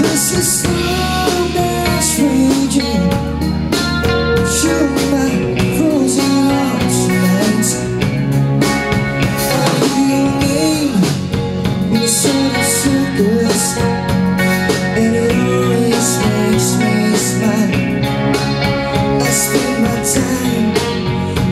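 Live band performing a song: a male lead singer over electric bass, electric guitar, a drum kit with cymbals, and keyboards, played loud.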